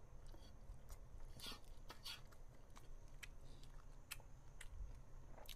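Faint close-miked chewing of instant ramen noodles: scattered wet mouth clicks and smacks, a few every second, over a low steady hum.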